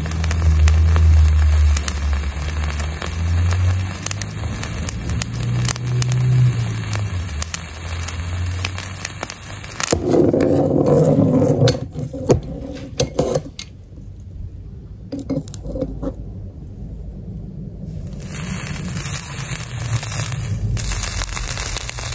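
Red-hot iron ball sizzling and crackling as it sears into a chicken wing's skin, over a low hum. About ten seconds in the sizzle cuts off abruptly, followed by a brief louder burst and then quieter scattered knocks and crackles.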